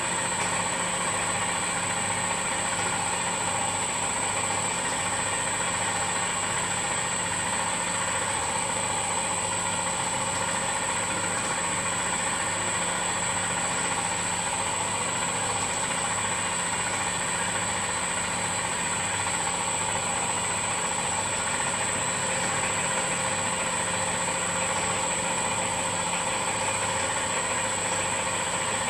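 Boutelje Honey Auger running steadily as it grinds crystallised honey: an even machine hum with a constant thin high whine.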